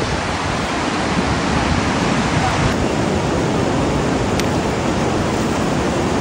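Ocean surf breaking and washing up the beach: a steady, loud rush of noise.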